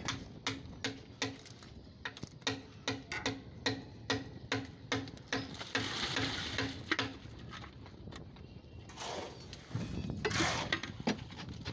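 Concrete mixer running with an even mechanical knocking, about three knocks a second. Near the end there is the gritty scrape and slide of wet concrete being handled.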